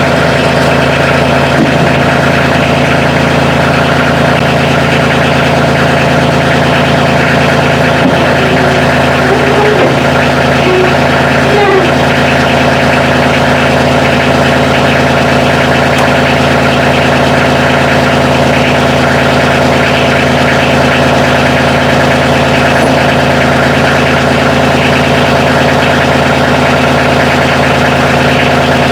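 Kioti CK2610 compact tractor's three-cylinder diesel engine running steadily at an even speed.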